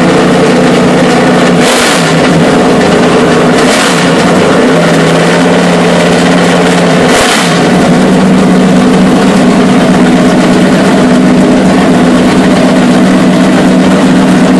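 Unmuffled V8 of a NASCAR stock car running loud and steady while parked. It is blipped briefly three times, about 2, 4 and 7 seconds in.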